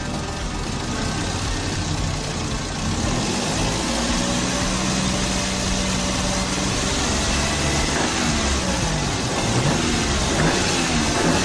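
Xenia-Avanza petrol engine running at idle, then revved several times by hand at the throttle body. From about eight seconds in, the pitch rises and falls in repeated short blips as the throttle is opened and released.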